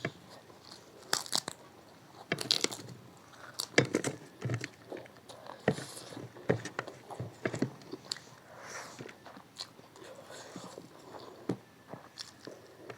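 Close-miked eating: irregular bites, crunches and chewing as a person works through a biryani meal with crisp sides. The loudest crunches come a few seconds in.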